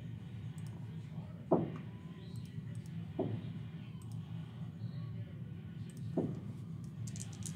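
Faint computer mouse clicks over a low steady hum, with three soft thumps about one and a half, three and six seconds in.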